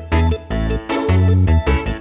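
Upbeat background music with a bouncy bass line and keyboard-like melody.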